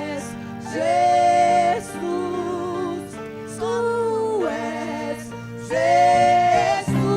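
Live gospel worship band playing, with a singer holding long phrases over a steady bass and keyboard backing.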